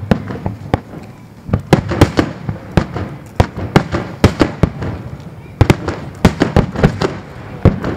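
Aerial firework shells bursting in quick, irregular volleys: a string of sharp booms and cracks with two short lulls, about one second in and about five seconds in.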